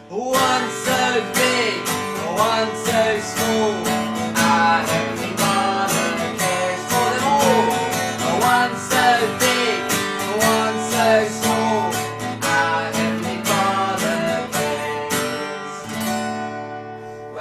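Yamaha acoustic guitar strummed steadily while a man and a woman sing a children's song together; the singing stops near the end and the last chord fades out.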